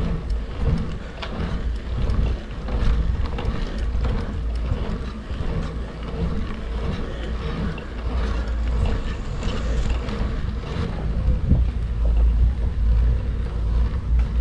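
Wind buffeting the microphone of a camera carried on a bicycle ride: a steady, heavy low rumble, with scattered light clicks and rattles from the bike over the road.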